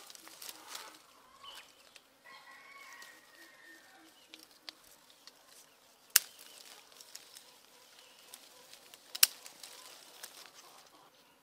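Chickens clucking in a low, pulsing series, over a faint rustle of leaves. Two sharp snaps about six and nine seconds in are the loudest sounds, as green citrus fruit is picked from the branches.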